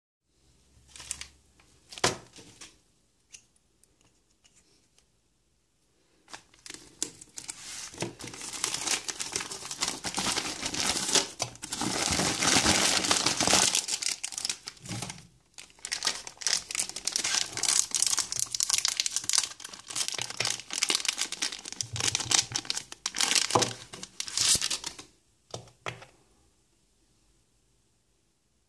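Plastic postal mailer bag crinkling as it is handled and torn open. A few scattered rustles and taps come first, then dense crinkling starts about six seconds in, breaks off briefly partway, and stops a few seconds before the end.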